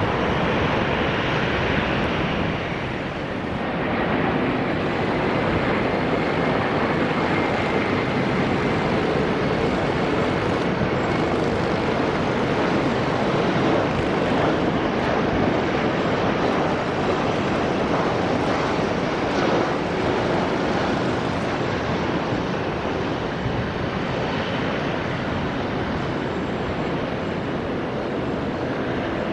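Steady jet noise from an Airbus A340-300 on final approach, its four CFM56 turbofans at approach power, with a faint high whine in the first part. In the first few seconds, before a short dip in level, the noise is from a twin-engine airliner on its landing roll.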